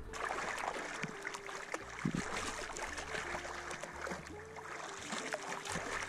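Sea water lapping and splashing around a camera held at the water's surface: a dense crackle of many small splashes and drips.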